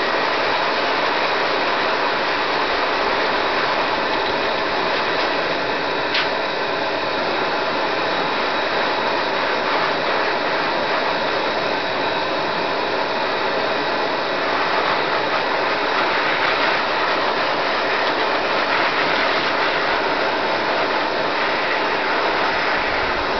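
K9-II high-velocity dog grooming dryer running steadily, a loud even rush of air blasting excess water out of a dog's long wet coat.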